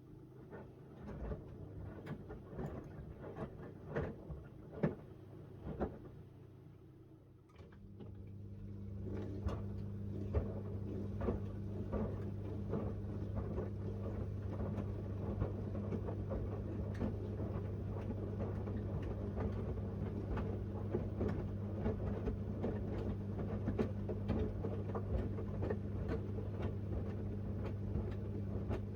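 Miele W1 front-loading washing machine early in its wash, with light tapping and clicking as the small load of shirts tumbles in the drum. About seven seconds in, a steady motor hum starts and everything grows louder, with the tapping running on over it.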